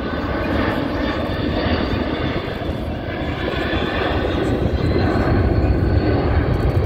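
Jet noise from a C-17 Globemaster III's four turbofan engines as it flies past: a steady rumble with a faint whine over it, growing louder in the second half.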